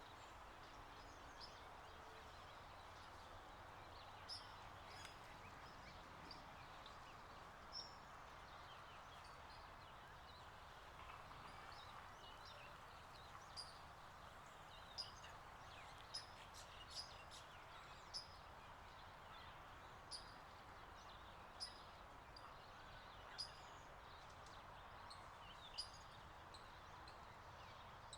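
Small birds chirping: short, high chips scattered throughout, coming more often in the second half, over a faint steady rushing background.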